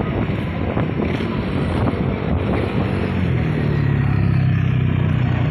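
Wind buffeting the microphone over road traffic noise; a low engine hum swells about three seconds in, as a vehicle passes close.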